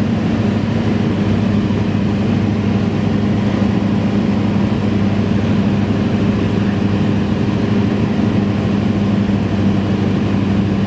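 Cessna 172's piston engine and propeller running at a steady speed: a constant, unchanging drone.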